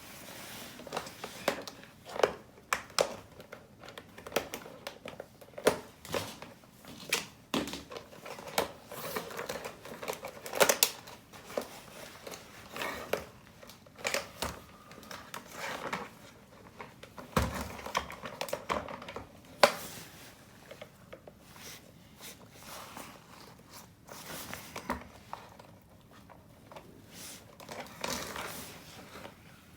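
Irregular clicks and taps of small hard parts being handled, with some crinkling and rubbing between them.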